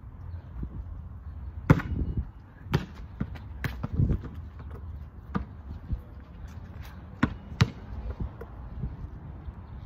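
A basketball bouncing on a paved driveway and striking a portable Tarmak hoop while being shot around: about eight sharp thuds and bangs at irregular intervals.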